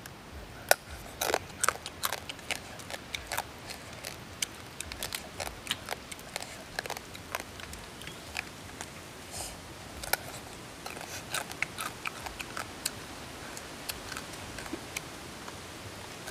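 Boiled crab shells cracking and crunching as the crabs are broken apart by hand and bitten, with chewing: many irregular sharp clicks and snaps.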